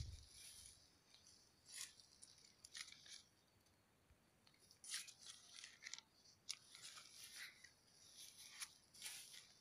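Near silence broken by faint, scattered crackling rustles of leaves and twigs brushing past, each lasting a moment.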